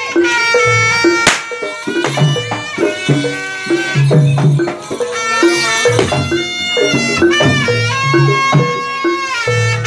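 Live Javanese jaranan ensemble music: a reedy shawm-like melody over a steady drum pattern, with a sharp crash-like strike about a second in.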